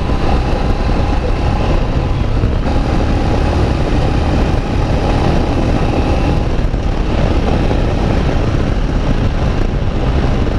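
Motorcycle on the move: steady wind rush over the microphone with the engine running underneath.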